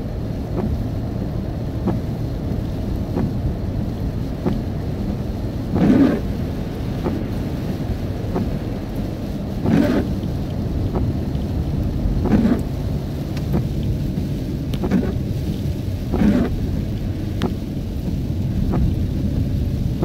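Inside a car driving on a wet road in rain: a steady low rumble of the car and tyres with rain hiss, and a brief swish every two to four seconds.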